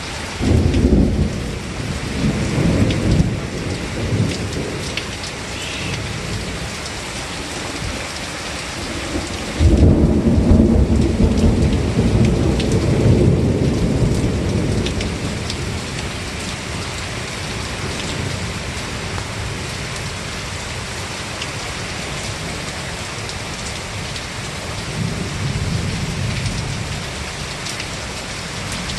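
Thunderstorm: steady heavy rain hissing on surfaces, with thunder rumbling low and loud just under a second in, again longer and louder from about ten seconds in and dying away over several seconds, and a fainter roll near the end.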